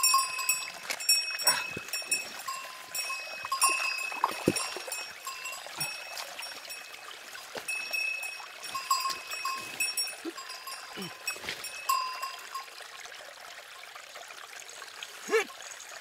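A small bell jingles on and off as the man moves, stopping a little before the end. Under it a shallow creek trickles, and there are a few dull knocks of stone as a large boulder is shifted in the streambed.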